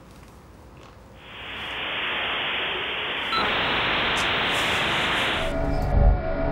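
Electronic static hiss that fades in about a second in, grows louder around halfway, then cuts off near the end as music with a deep beat starts.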